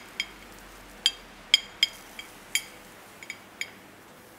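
A metal spoon clinking against a ceramic plate as quinoa is spooned onto it: about ten light, irregular taps, each with a short bright ring.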